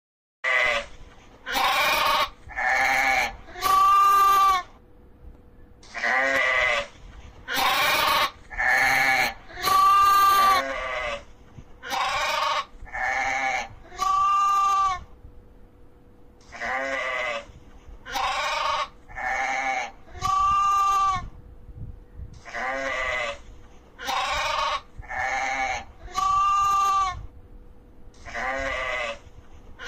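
Sheep bleating over and over, about two dozen calls in groups of three to five with short pauses between. Each bleat lasts under a second, and the longest ones waver in pitch.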